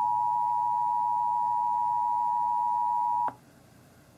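Emergency Alert System two-tone attention signal, 853 Hz and 960 Hz sounding together as one steady tone, marking the start of an emergency alert broadcast. It cuts off about three seconds in, leaving near silence.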